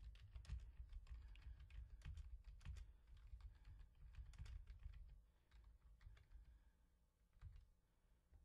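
Faint typing on a computer keyboard: a quick run of keystrokes that thins out after about five seconds, with one soft knock near the end.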